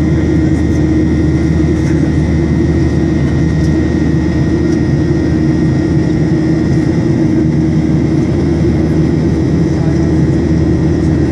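Steady drone of a Boeing 737-800's CFM56 turbofan engines heard inside the cabin during the climb after takeoff: a loud, even low rumble with a thin steady whine above it.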